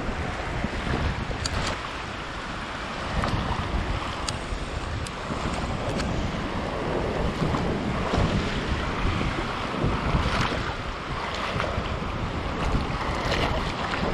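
Wind buffeting the microphone over small Baltic Sea waves washing onto the shore. A few short clicks stand out now and then.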